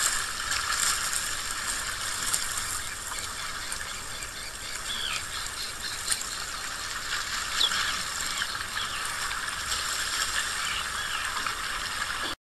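Steady rush of running water, with a few faint bird-like chirps in the middle; it cuts off suddenly near the end.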